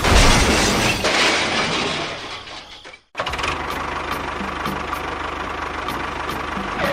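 A loud rushing noise fades away over the first two and a half seconds. After a sudden cut, an engine-like sound runs steadily with a light regular tick.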